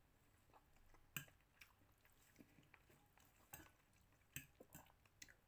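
Faint eating sounds: a person chewing noodles, with a few light clicks of a metal fork against a china plate, the loudest about a second in.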